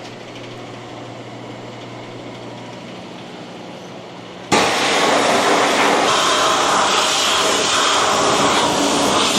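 A steady low machine hum, then about halfway through a pressure washer's spray wand suddenly opens up: a loud, steady hissing jet of water blasting against a conveyor belt.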